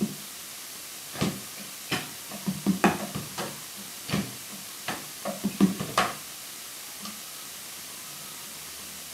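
Drums struck in irregular single hits and short flurries, the loudest about six seconds in, after which the playing stops and a steady hiss remains.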